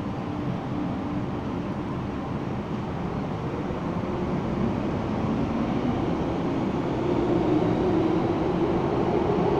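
MTR M-Train electric multiple unit pulling out of an underground platform behind glass platform screen doors: a steady rumble of wheels on rail with a motor hum that slowly rises in pitch and grows louder as the train accelerates.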